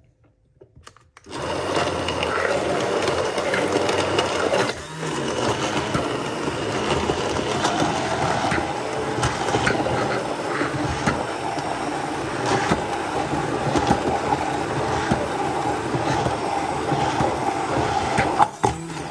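Braun MultiQuick 9 hand blender (1200 W) running in its beaker through almonds, berries and oat milk, starting about a second in and cutting off shortly before the end, with a brief dip around five seconds and scattered sharp clicks.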